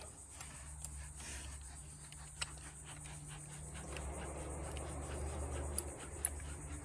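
Steady high-pitched chirring of insects such as crickets, with a low hum underneath and a few scattered light clicks and knocks from tools and parts being handled.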